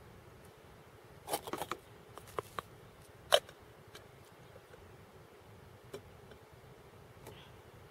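Light clicks and knocks of a blue camp mug being handled, a quick cluster about a second in and the sharpest single click at about three seconds, over a low steady hiss.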